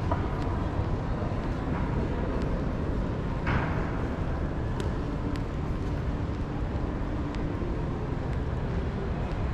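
Shopping mall concourse ambience: a steady low rumble of room noise, with one short clatter about three and a half seconds in.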